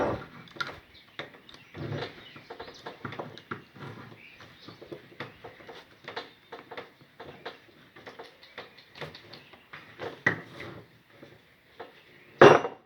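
Ratchet strap being handled: nylon webbing rustling and sliding through the metal ratchet, with irregular light clicks and clacks and one louder clack near the end.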